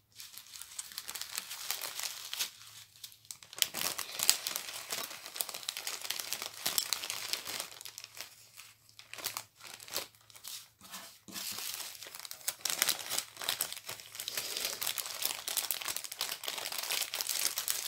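Plastic packaging of a diamond painting kit crinkling as it is handled, rustling on and off with short lulls about three seconds in and around ten seconds in.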